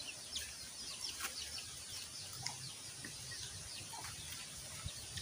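Small birds chirping: many short, quick high chirps scattered throughout over a quiet outdoor background.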